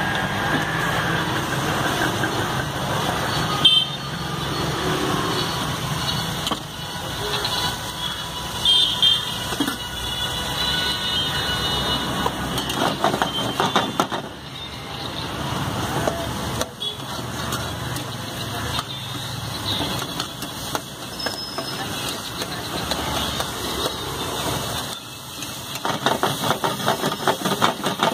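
Street traffic with vehicle horns tooting. Near the end comes a rapid run of metal clinks and scrapes as a spatula stirs onions and tomato in an iron frying pan.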